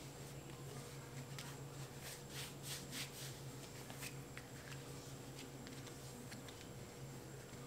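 Faint scuffing and rubbing as a leather boot false tongue is handled and worked with grease by hand, with a cluster of soft scratchy strokes about two to three seconds in and a few more later, over a steady low hum.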